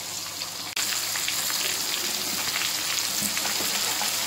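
Gram-flour-battered panga fish fillets sizzling steadily as they shallow-fry in hot oil in a kadai, with faint clicks of a steel slotted spoon turning them. The sizzle breaks off briefly under a second in, then carries on slightly louder.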